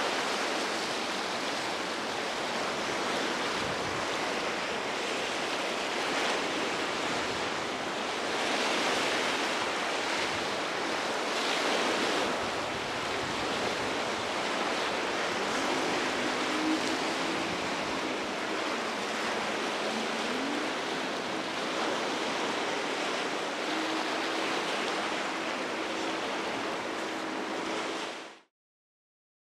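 Steady rush of breaking waves and choppy surf, with a faint low hum coming in about halfway. The sound cuts off suddenly near the end.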